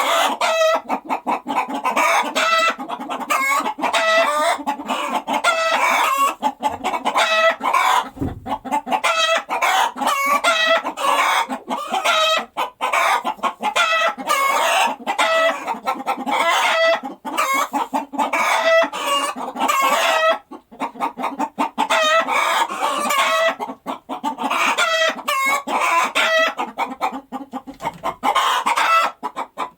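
A flock of hens clucking, with many short calls overlapping one another and no break.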